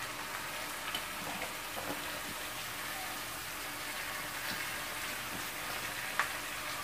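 Onion, curry leaves and green chillies sizzling in oil in a frying pan, a steady sizzle with small scattered ticks, as grated beetroot is pushed in on top by hand. There is one sharper tap about six seconds in.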